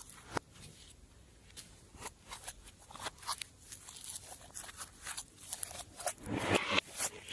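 Slime being worked by hand, making scattered small clicks and crackles, sparse at first and denser and louder near the end.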